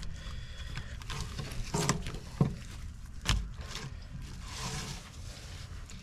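Knife work on a mullet at a cutting board: a few sharp knocks, the loudest with a dull thump about three seconds in, then a soft scraping near the end as the blade runs through the fish.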